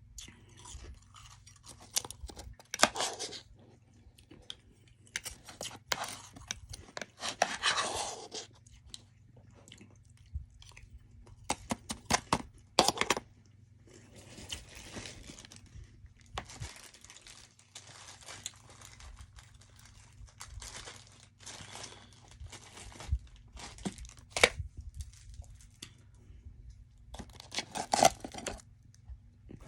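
Close-miked chewing of soft freezer frost: bursts of crisp crunches every few seconds, with quieter chewing between them.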